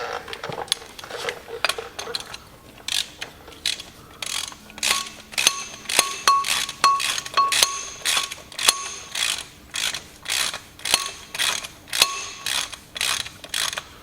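Socket ratchet clicking as the flywheel bolts are run down into the crankshaft: scattered clicks for the first few seconds, then a steady run of short strokes at about two a second.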